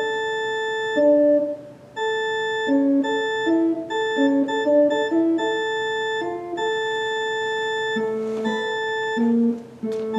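Baldwin HT2 electronic organ playing a slow passage of chords: one middle note is held for long stretches while shorter notes move above and below it. The playing breaks off briefly about two seconds in and again near the end.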